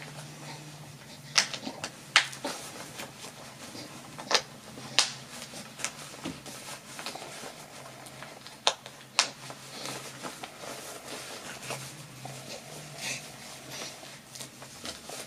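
Plastic snaps on a one-size pocket cloth diaper being unsnapped and snapped one at a time as its rise is set to the smallest size: sharp clicks every second or few, with soft fabric handling between them. A faint steady hum runs underneath.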